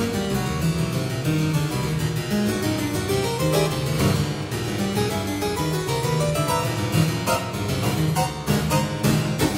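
Two-manual harpsichord playing a fast, dense passage of plucked notes and chords over strong bass notes.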